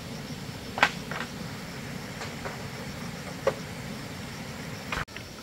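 Rural outdoor ambience: a steady low rumble with a faint, steady high whine, and about five scattered sharp knocks, like wood being tapped, in the first few seconds.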